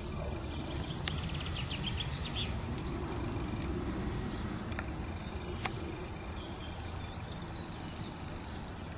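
Countryside ambience: a steady low rumble with birds chirping and trilling now and then, and two sharp clicks, one about a second in and another a little past halfway.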